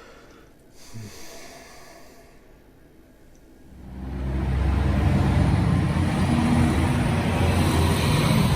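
A motor vehicle's engine running, fading in about four seconds in to a loud, steady low rumble after a quiet start.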